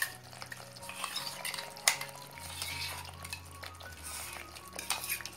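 A spatula scraping and tapping against a nonstick pan as onion-cashew paste is scraped into simmering gravy, over a light sizzle. There are a few sharp taps, the loudest about two seconds in.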